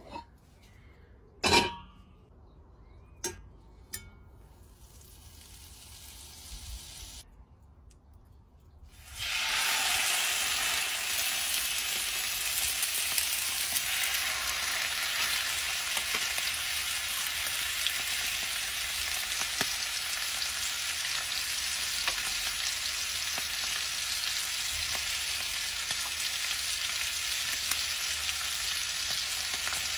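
Beef steaks searing in hot fat in a cast-iron skillet over charcoal: a loud, steady sizzle that starts suddenly about a third of the way in. Before it, a few sharp clicks.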